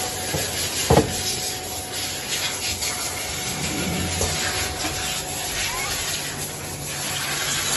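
Steady hiss and low hum of shoe-making machinery, with rubbing and handling noises and one sharp knock about a second in.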